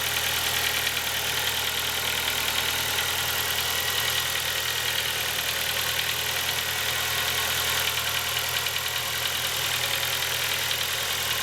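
Ford Focus II engine idling cold, running steadily with a rapid knock or tapping mixed in. It sounds as if something is knocking inside, and the noise fades once the engine warms up.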